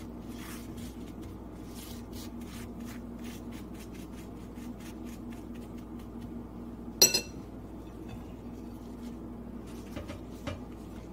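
Metal spoon spreading za'atar and olive oil over a tortilla on a plate: repeated faint scraping strokes, with one sharp clink of the spoon against the plate about seven seconds in.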